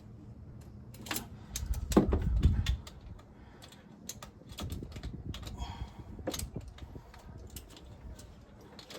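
Scattered clicks and knocks of metal hand tools and parts being handled while working on the engine, with a loud low rumbling knock about two seconds in.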